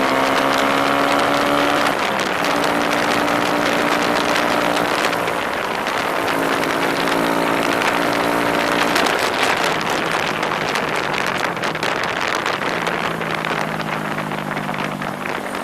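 A small motorbike engine running while riding, its pitch rising over the first two seconds and then holding steady, under heavy wind noise on the microphone.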